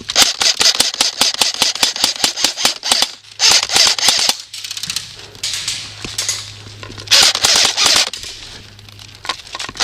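Airsoft guns firing in rapid full-auto strings: a long run of shots for the first three seconds, then two shorter bursts.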